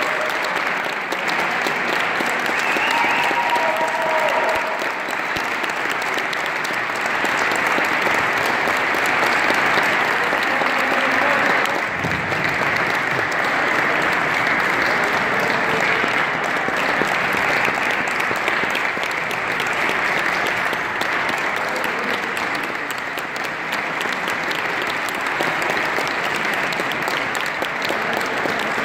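Steady applause: a crowd and a line of players clapping their hands.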